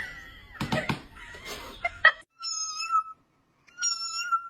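A cat meowing twice, each meow high-pitched and drawn out, after a few knocks and clicks in the first two seconds.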